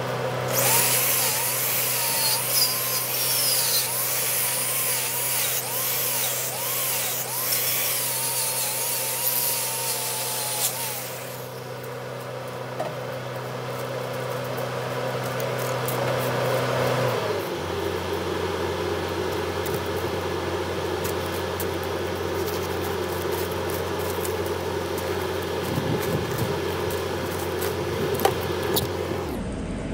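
Milwaukee angle grinder with a knotted wire cup brush spinning against a fresh weld on a steel pintle hitch, its whine wavering as it is pressed on, for about the first ten seconds. A steady low hum runs underneath and drops in pitch about two-thirds of the way through.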